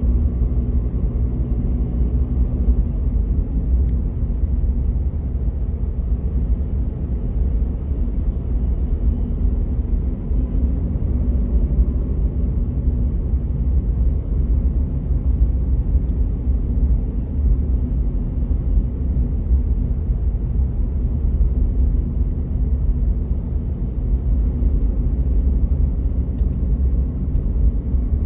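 A car's engine and tyres, heard from inside the slowly moving car: a steady low rumble with no sudden sounds.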